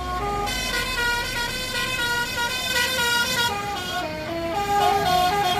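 Tour bus's basuri (telolet) musical horn playing a melody of short held notes that step up and down in pitch, with a brief thinning of the tune around four seconds in.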